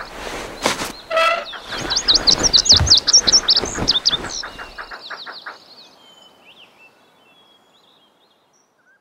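Cartoon sound effects: a few whooshes and clicks, then a quick run of high bird-like chirps about two to four seconds in, fading away to near silence.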